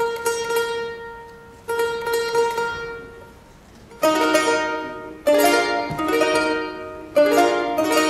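Charango played solo: a high note rapidly re-plucked in tremolo for the first few seconds, then, after a short pause, three strummed chords that ring out and fade.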